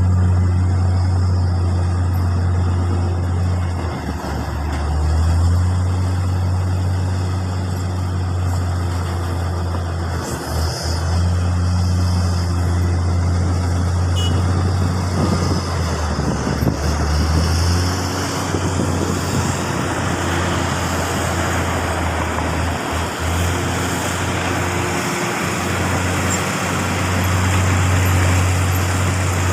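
Heavy diesel construction machinery running steadily with a deep, constant hum that dips briefly a few times.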